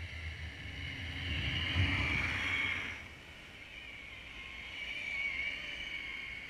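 Whine of a radio-controlled Veroma Snow Tiger weasel's electric drive motors and gearing as the tracked model runs over snow on hard plastic tracks. It grows louder to a peak about two seconds in, drops away near three seconds, then swells again around five seconds as the model comes closer.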